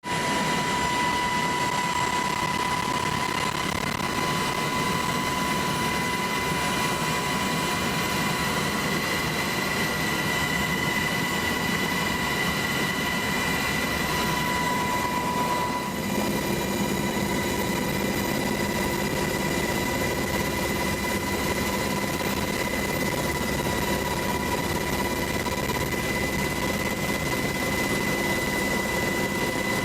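Helicopter engine noise, a loud steady roar with a high steady whine; about halfway through the tone shifts and a lower hum joins in.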